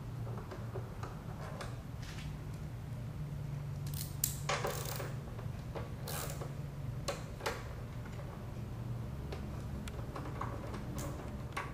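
Scattered small metallic clicks and clinks of a hand tool working the tank-cover bolts of a motorcycle, with a short cluster about four to five seconds in. A steady low hum runs underneath.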